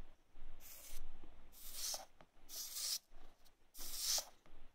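Hot soldering-iron tip wiped across a damp cleaning sponge, hissing and sizzling in short bursts about once a second as each stroke turns water to steam.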